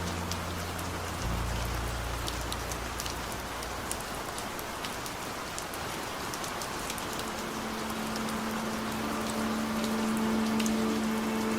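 Steady rain falling, an even hiss with scattered drop ticks. A held low music note dies away in the first few seconds, and a new steady synth-like note comes in about seven seconds in.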